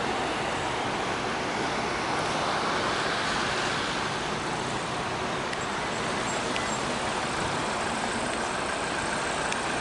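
Steady road traffic noise of motor vehicles running, with no single event standing out.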